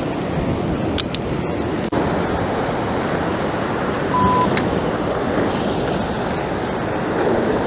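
Ocean surf breaking against a rock ledge: a steady rush of water noise, with wind on the microphone. A couple of faint clicks come about a second in, and a short high beep comes around four seconds.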